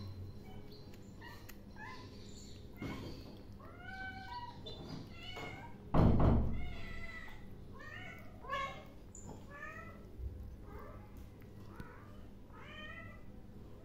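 A young kitten mewing over and over in short, high, arching calls while it eats chicken. About six seconds in there is one loud thump.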